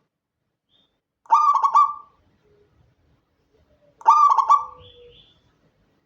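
Local Indonesian zebra dove (perkutut) cooing twice. Each phrase is a quick run of pulsed coo notes lasting under a second, with silence between the two phrases.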